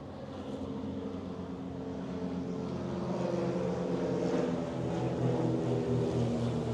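An engine running and growing steadily louder as it comes closer, with a low, slightly wavering hum.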